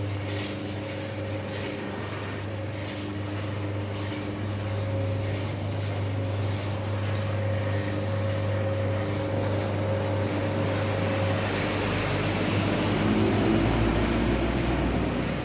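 A 4–5 kg coffee roasting machine running, giving a steady motor hum. About twelve seconds in the sound turns deeper and rougher.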